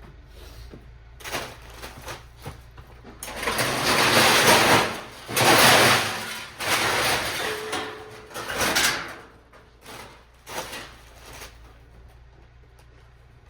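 Scrap metal being handled and loaded: sheets of metal roofing and scrap scraping, sliding and rattling in a series of noisy bursts, loudest in the middle, then a few shorter knocks before it dies down.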